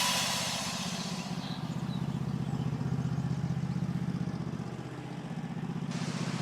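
Steady low engine drone with a fast, even pulse, from a running machine.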